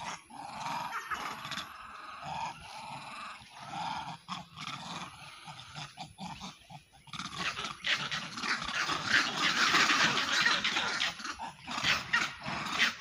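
Animal cries: a run of short, rising-and-falling calls, then a louder, harsher rushing noise from about seven seconds in.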